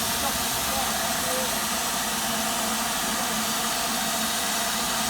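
Steady hiss of steam, as from a steam locomotive standing with steam up, with a faint low hum underneath.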